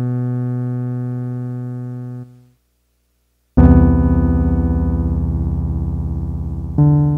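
Soundtrack music of slow, sustained keyboard chords. The first chord fades out about two seconds in, there is a moment of silence, then a deep new chord comes in loudly, and another chord enters near the end.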